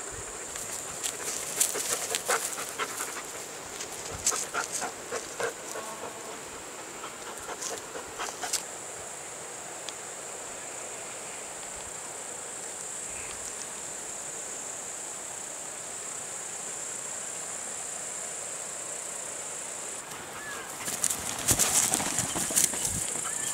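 Large dog panting and moving about on dry forest litter, with bursts of rustling and scuffing in the first few seconds and a louder burst near the end as it moves off. A steady high hiss runs underneath.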